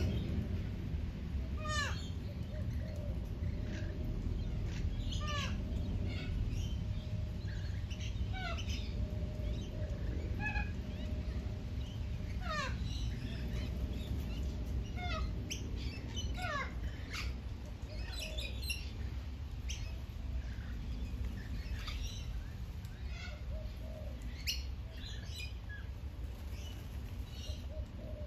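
Birds calling: many short calls that slide downward in pitch, a few every couple of seconds, over a steady low rumble.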